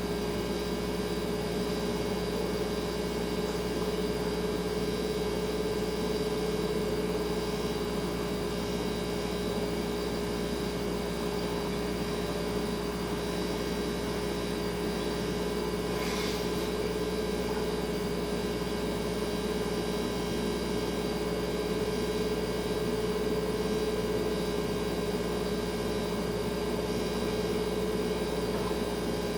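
Refrigerator running with a steady hum made of several fixed tones over a soft hiss, with one faint click about halfway through.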